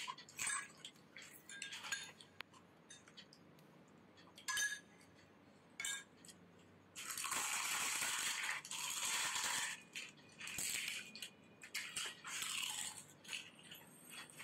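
Panipuri being eaten: crisp hollow puri shells cracked open by thumb and crunched, as scattered sharp clicks and cracks with a longer stretch of dense crunching from about seven to ten seconds in.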